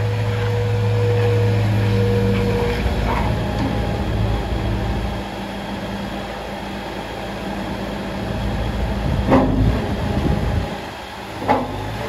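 JCB 155 skid steer loader's four-cylinder Perkins diesel running as the machine drives and raises its loader arms, working harder over the first few seconds. Two sharp clunks come in the last few seconds.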